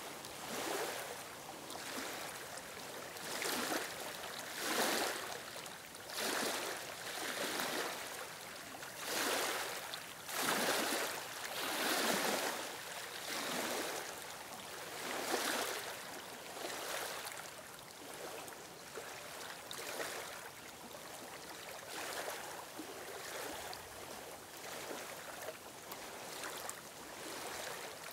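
Small waves lapping on a stony shore, a rhythmic wash of water that swells and falls back about every second and a half, stronger in the first half and gentler later.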